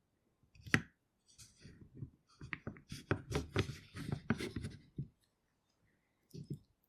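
Egg slicer in use on boiled eggs: a sharp click, then a busy run of clicks, knocks and rattles from the slicer's frame and wires with handling noise, and a couple of soft knocks near the end.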